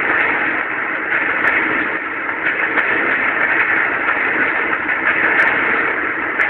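College drumline playing drums and crash cymbals together, heard as a loud, dense, distorted wash with no separate strokes standing out. It is played back through a TV's speaker, so it sounds thin and cut off at the top.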